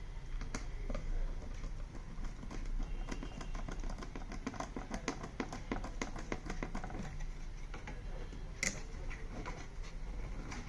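Rapid, irregular small clicks and taps of screws and a screwdriver working on a TV's plastic cabinet while speakers are screwed in. The clicking is densest through the middle, with one sharper click near the end, over a steady low hum.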